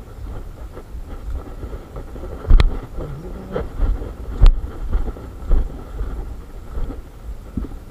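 A hiker's footsteps on a dirt jungle trail, with wind and handling noise rumbling on the phone's microphone. Two louder knocks stand out near the middle, about two seconds apart.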